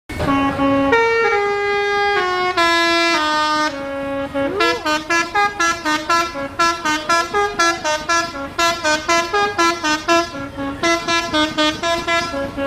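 Indonesian 'telolet' bus horn, a multi-tone air horn, playing a tune: a few long notes stepping down in pitch, then from about four seconds in a quick run of short notes, about three a second.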